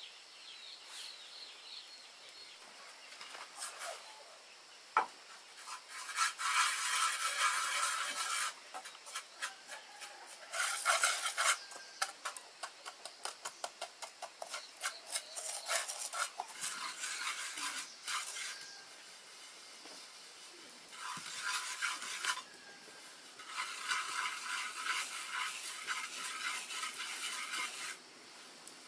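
Scraping strokes in bursts of a few seconds each, with a run of quick separate strokes near the middle.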